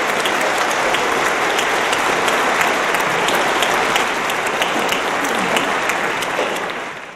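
Large audience applauding: dense, steady clapping that fades out near the end.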